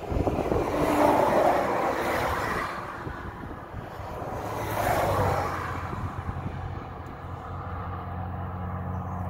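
Highway traffic passing: two vehicles swell up and fade away, about one and five seconds in, followed by a low steady engine hum.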